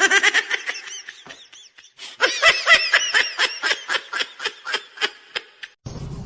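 Someone laughing hard in a rapid string of high-pitched bursts, about five a second, with a short break about two seconds in before it grows louder.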